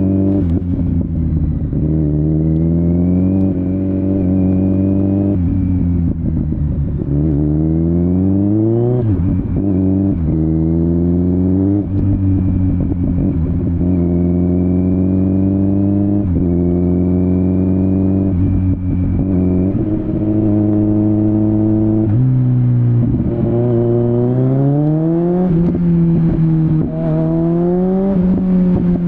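Kawasaki Z900's inline-four through a LeoVince LV10 exhaust, heard from onboard, accelerating through the gears: the engine note climbs with each pull and drops back sharply at each upshift, several times over.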